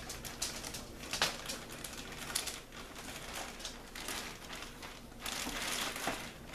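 Clear plastic bag and wrapping paper crinkling and rustling in irregular bursts as a bagged doll is lifted out of a box and handled, with a longer, louder stretch of crinkling near the end.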